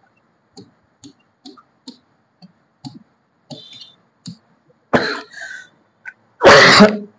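Faint short ticks and scrapes of a marker writing on a glass board. A man coughs about five seconds in, and again more loudly near the end.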